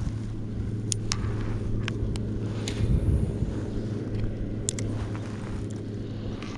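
Steady low motor hum, with a few sharp clicks and ticks from the spinning rod and reel being handled.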